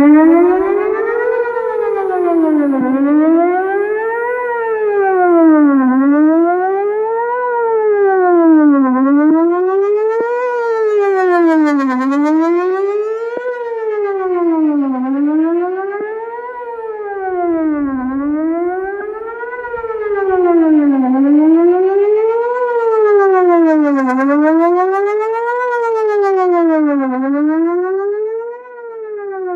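Whelen 4008 electronic outdoor warning siren sounding its Best Possible Protection tone for a monthly test: a loud siren that starts suddenly, its pitch sweeping up and down about once every two seconds.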